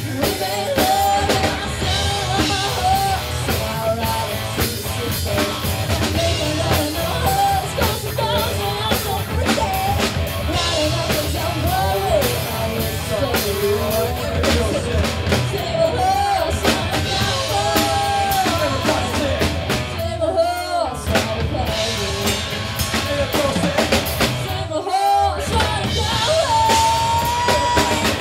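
Live rock band playing with a female lead singer: sung vocal over electric guitars and a drum kit. The band drops out briefly twice about two-thirds of the way through while the voice carries on, and a long note is held near the end.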